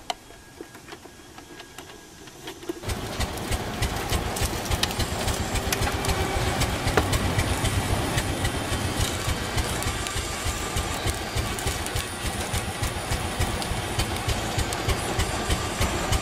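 The drive of a model oil-well pumpjack switches on about three seconds in and runs steadily with a rapid, even clatter.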